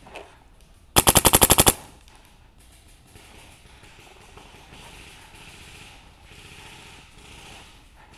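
A MacDev Clone GTi electronic paintball marker firing one rapid burst of about nine shots in under a second, about a second in.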